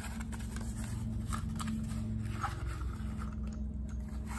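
A small cardboard ammunition box being opened by hand and 8mm Mauser rifle cartridges on a stripper clip slid out of it: a few light rustles and clicks of cardboard and brass over a steady low hum.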